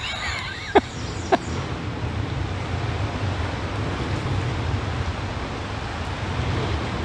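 Steady rumble of road traffic passing overhead mixed with the rush of flowing water, with two sharp clicks about a second in.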